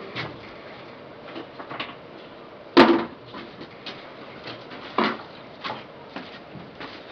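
Knocks and clatter as a man pushes through a wooden gate carrying a plastic basin and jerrycan, with one sharp knock about three seconds in and a softer thump about two seconds later.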